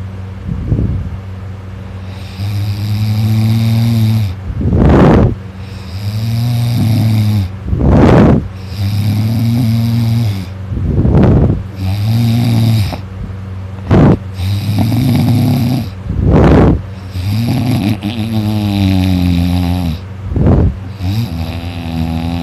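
A person snoring loudly in sleep: a long, pitched snore on each breath, followed each time by a short, sharp burst of noisy breath, repeating about once every three seconds.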